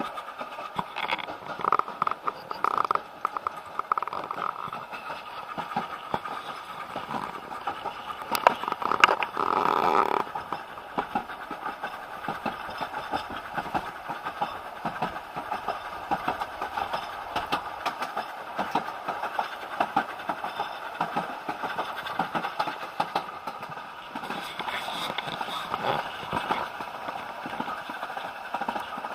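Narrow-gauge railway carriage rolling along the track, heard from inside, with wheels clicking and rattling over the rails continuously. There is a louder, harsher stretch about nine to ten seconds in.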